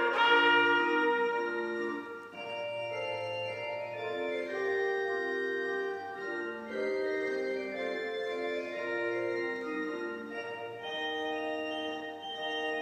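A trumpet's final phrase ends in the first moments, then an organ accompaniment plays on alone in slow, held chords as an interlude.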